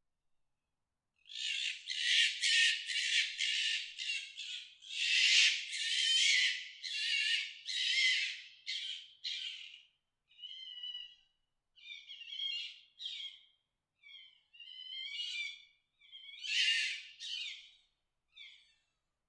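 Fox mating calls: harsh, high-pitched screams. A dense run of them starts about a second in, then about halfway through they give way to shorter calls with gaps between them.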